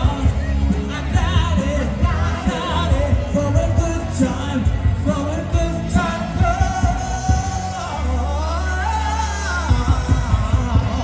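Pop music with a singer's voice over a heavy, steady bass beat.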